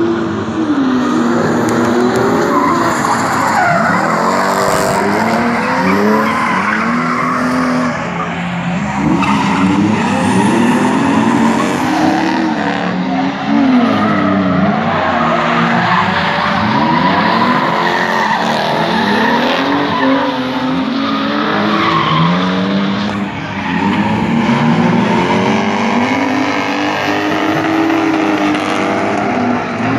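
Two cars drifting in tandem, their engines revving up and down again and again as they slide, with tyres screeching throughout.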